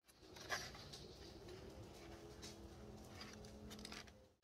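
Near silence: faint room tone with a few soft taps.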